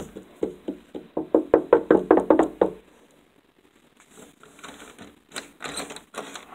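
A rapid series of knocks, about five or six a second for some two and a half seconds, followed by a few lighter scattered clicks and rustles.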